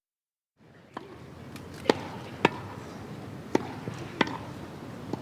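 Tennis rally: a tennis ball struck by rackets and bouncing on the court, five or six sharp pops half a second to a second apart over a steady background of outdoor noise.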